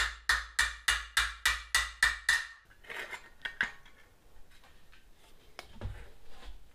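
Hammer striking steel in a quick, even run of ringing blows, about three a second, which stops about two and a half seconds in, followed by a few lighter taps and clinks. The blows are being used to widen the shrinker-stretcher's jaw opening back out.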